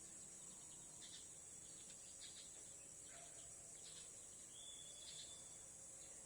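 Faint outdoor ambience: a steady high-pitched insect drone, with a few short, scattered bird chirps.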